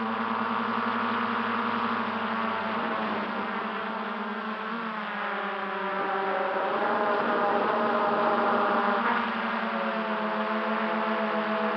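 MJX Bugs 3 quadcopter's brushless motors and propellers whirring in flight, a steady multi-tone whine whose pitch shifts up and down several times as the throttle changes.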